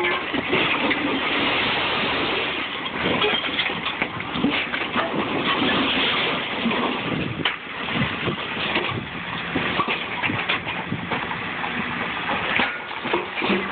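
A Case skid-steer loader's engine runs under load while rusty scrap engine blocks slide off a tipped wooden trailer bed, scraping and clanking against each other and onto the pile. The clatter of metal is busiest in the first half, while the load comes off.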